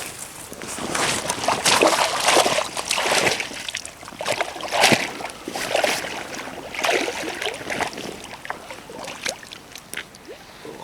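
Hooked smallmouth bass splashing and thrashing at the water's surface as it is landed, in irregular splashes that are loudest in the first half and taper off toward the end.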